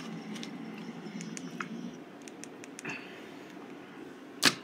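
Quiet room noise with a few faint light clicks, then one sharp knock near the end.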